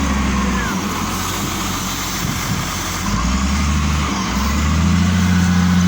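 Caterpillar 938G wheel loader's diesel engine running under load, its low note changing several times as the machine is driven through its gears.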